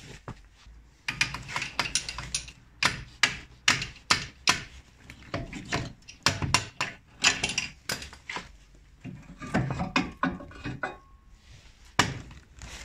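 Irregular metallic knocks and clunks as a VW Polo's front driveshaft is worked loose by hand and pulled out, its joints knocking against the hub and suspension parts. The knocks come in quick clusters, several a second at times.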